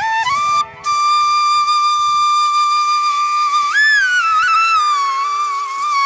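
Background flute music: a slow melody holding one long note, broken briefly near the start, with an upward turn and slide back down about four seconds in, over a steady drone.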